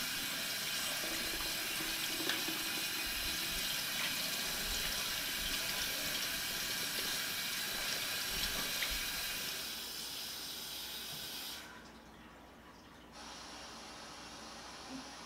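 Kitchen faucet running, its stream splashing over hands and into a stainless steel sink as they are rinsed; the water fades and stops about twelve seconds in. A fainter, steady hiss of television static follows near the end.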